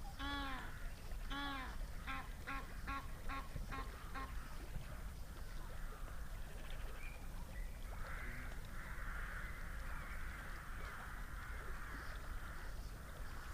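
Waterfowl calling: two drawn-out honking calls, then a quick run of about six shorter calls, a few a second, over a steady low rumble. A hiss comes in about eight seconds in and stops near the end.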